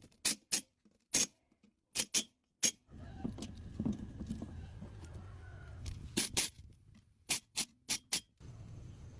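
A series of sharp clicks or knocks, about a dozen, coming in small groups with short silences between, the last four in quick succession.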